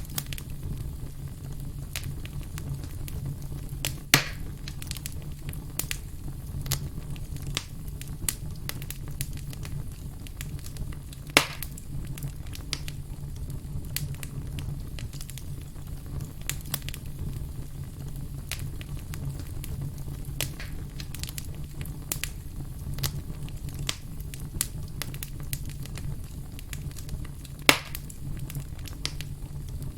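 Wood fire crackling, with frequent small snaps and pops over a steady low rumble of the flames, and three louder pops spread through.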